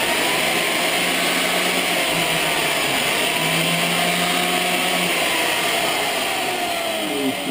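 Angle grinder disc grinding against a steel part that spins in a cordless drill's chuck, rounding off its edges. A loud, steady grinding hiss, with a motor whine that wavers slightly in pitch under load.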